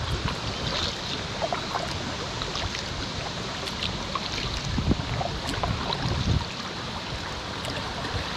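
Paddling a packraft on a river: water splashing and dripping off the paddle blades over a steady rush of water, with a couple of low thumps near the middle.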